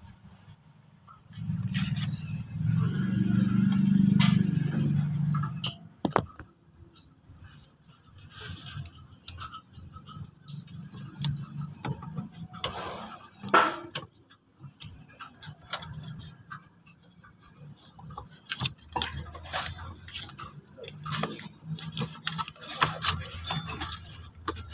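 Handling noises at the back of a headlight housing: scattered clicks, taps and light rattles as a rubber dust cover and an LED bulb with a braided cable are fitted, the rattling busiest near the end. Near the start a low rumble runs for about four seconds and is the loudest sound.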